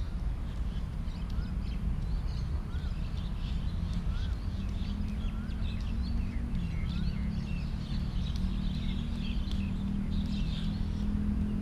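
Birds calling, with a short rising whistled note repeated about once a second, over a steady low background rumble. A low steady hum comes in about halfway through.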